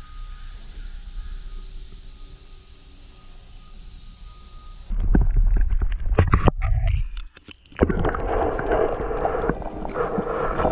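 Action camera lowered into shallow marsh water. At first there is only quiet hiss with a faint steady high whine. About five seconds in the sound turns suddenly muffled as the camera goes under, with loud knocks, sloshing and gurgling, a brief cut-out, then a dense underwater rush.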